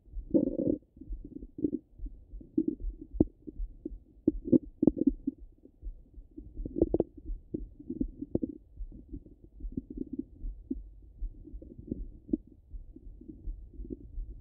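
Human stomach and intestinal sounds heard through a stethoscope pressed to the belly: irregular low gurgles and rumbles, broken by scattered short sharp pops.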